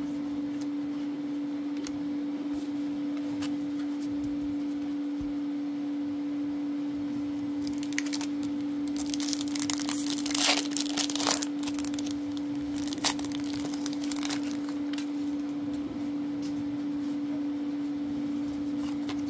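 A Magic: The Gathering booster pack's foil wrapper being torn open and crinkled by hand, in a run of crackling rips from about eight seconds in, loudest around ten to eleven seconds, then a single sharp click a little later. A steady low hum sits under it.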